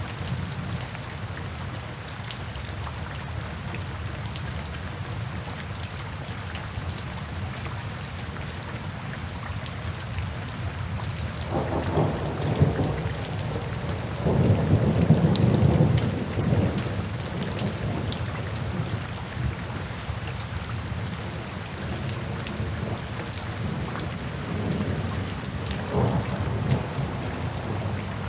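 Steady rain falling, with rolls of distant thunder rumbling low: a short one about twelve seconds in, a longer, louder one a couple of seconds later, and fainter rumbles near the end.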